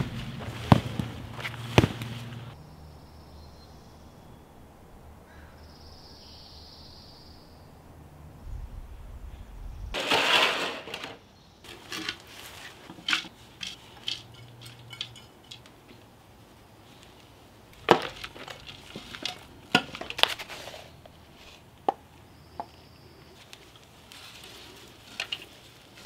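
Hands-on potting sounds: a few sharp knocks near the start as plastic flower pots are moved on paving stones, then a hand trowel digging into and dropping potting soil into a stone urn planter, a longer gritty rush about ten seconds in followed by a scattered run of scrapes and soft knocks.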